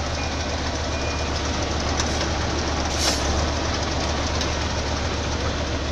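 Engine of a heavy vehicle running steadily with a constant low hum. There are a couple of short knocks about two and three seconds in.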